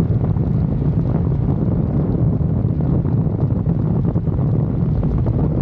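Steady low rumble of wind buffeting the microphone, with no breaks or separate events.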